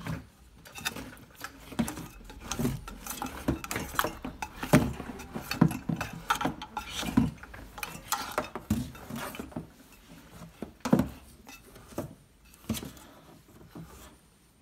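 Metal floor lamp pole being twisted tight by hand into its round metal base plate: irregular metallic clinks and knocks. They thin out after about ten seconds.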